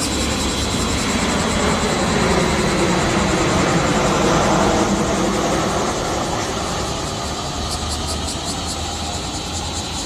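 Cicadas singing in a loud chorus, a rapid even pulsing high up that carries on throughout. Around the middle a broad rush swells up, drowning much of the pulsing, then fades.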